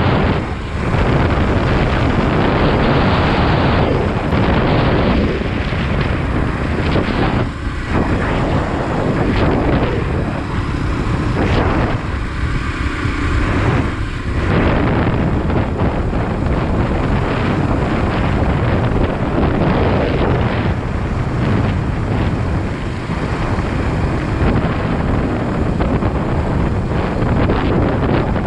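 Wind buffeting the microphone of a motorcycle riding at about 40 mph, with the engine running underneath. The wind noise eases a few times around the middle.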